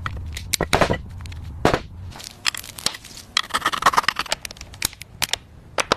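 Tools and metal transmission parts clicking and clinking irregularly, with a low rumble during the first two seconds.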